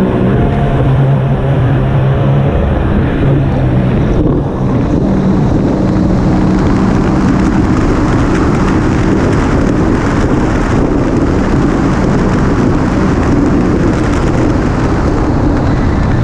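Personal watercraft engine running at speed, with wind on the microphone and water rushing past the hull. The sound dips briefly about four seconds in.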